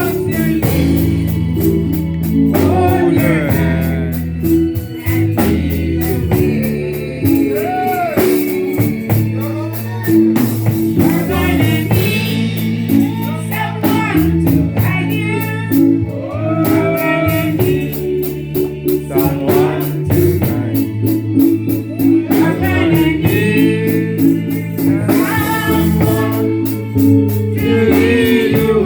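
Live gospel music: a voice singing in phrases over a band with guitar, bass and a steady beat.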